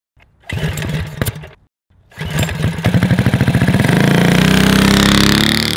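Engine starting and revving: a short burst of engine sound, a brief pause, then the engine runs and revs up, its pitch rising, before easing back down near the end.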